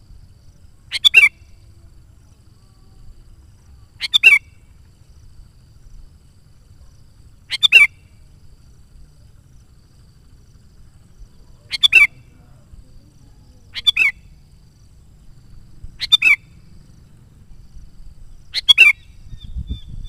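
Sooty-headed bulbul (kutilang) calling: seven short, loud phrases spaced two to four seconds apart, each a quick burst of notes.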